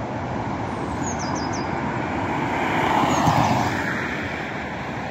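Road traffic noise: a vehicle passes, growing louder to a peak about three seconds in and then fading. A short high chirp repeats faintly in the background.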